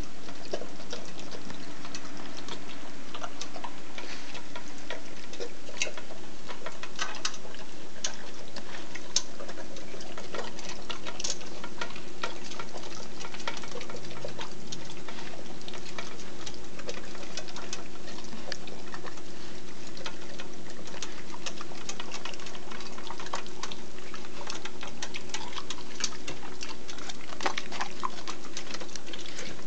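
German shepherd and Russian toy terrier eating from bowls on a raised stand: irregular small clicks and crunches of chewing and of the bowls being knocked, over a steady low hum.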